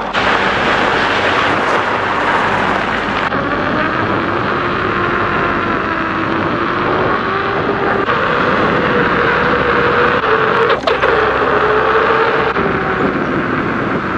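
Volvo EX30 electric car driving: steady road and wind noise with a faint tone that slowly wavers up and down in pitch.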